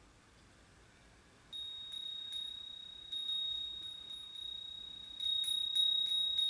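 Nanbu cast-iron wind chime (fūrin) ringing with one clear, high, lingering tone. It starts about a second and a half in. The clapper strikes again and again, and the strikes come quicker and louder near the end.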